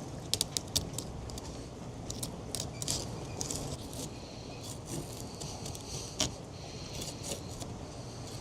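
Fillet knife working through a mahi, with clusters of short crisp ticks and scraping clicks as the blade cuts along skin and bone, over a steady low rumble of strong wind on the microphone.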